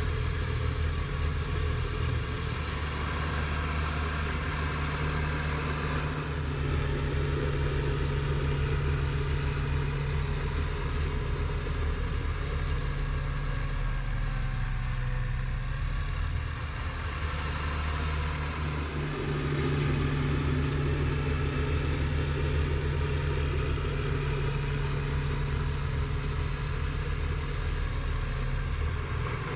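Kubota BX2230D compact tractor's three-cylinder diesel engine running steadily, easing off for a few seconds around the middle and then coming back a little louder.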